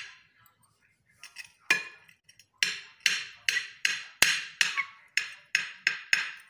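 Knife chopping boiled eggs on a plate, the blade striking the plate with each cut. A few scattered taps come first, then a quick steady run of about three strikes a second from a little under three seconds in until near the end.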